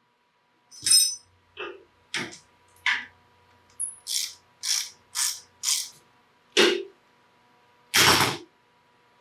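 Hand ratchet worked in short strokes on a fastener, a run of separate ratcheting clicks about two a second, with a louder clatter near the end.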